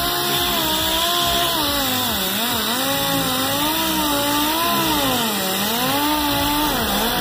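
Pneumatic random-orbital sander running on compressed air against a car body panel, its orbit locked. It gives a steady air hiss with a whine that wavers up and down in pitch as the pad is pressed onto and eased off the paint.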